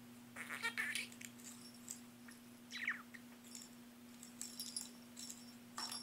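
Budgerigar chattering softly in short chirps, with one falling chirp near the middle, among light clicks and rattles from a plastic lattice ball being nudged about on a metal keyboard.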